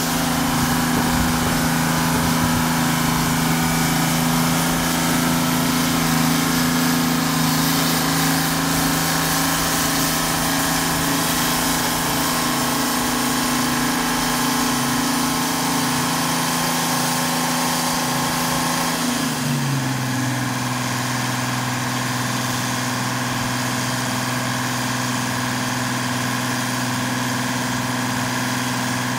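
Pyke rail crane's engine running steadily, then settling to a lower, slower note about two-thirds of the way through.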